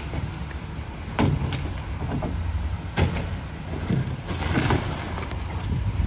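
McNeilus rear-loader garbage truck running with its packer working, a steady low rumble with two loud bangs about one and three seconds in. Plastic trash carts clatter near the end as they are handled.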